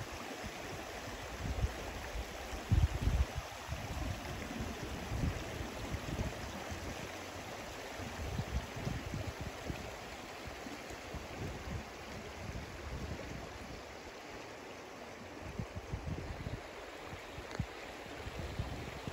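Shallow mountain river running over a stony bed, giving a steady rushing hiss. Irregular low rumbles of wind on the microphone come and go, strongest about three seconds in.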